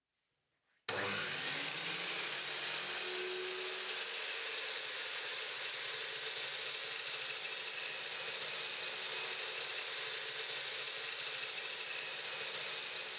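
A GMC DB305SMS 1800 W sliding compound mitre saw starts abruptly about a second in and runs steadily at full speed while its 305 mm blade makes a mitre cut through a length of timber.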